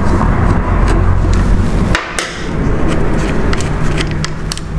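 Light clicks and taps of small metal carburettor parts being handled as the top cap comes off a motorcycle carburettor, several of them in the second half. Under them runs a steady low rumble that dips briefly about two seconds in.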